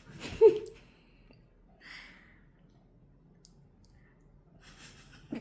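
A person imitating a nail gun with mouth sounds: a sharp, loud burst about half a second in, then a short hiss near two seconds in.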